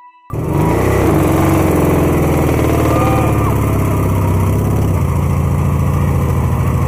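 A classic car's engine running hard and steady during a burnout, its rear wheel spinning and smoking. It cuts in abruptly about a third of a second in.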